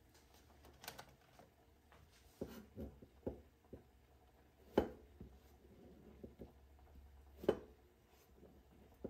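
Scattered knocks and taps from a peeled vegetable and a metal Y-peeler being handled on a plastic cutting board. Two knocks are sharper than the rest, about halfway and about three quarters of the way through.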